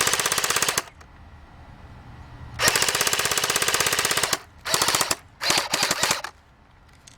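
JG G36C airsoft electric gun firing full-auto bursts on a 9.6 volt battery, showing its rate of fire: a burst ending just after the start, a long burst of about a second and a half, then two short bursts.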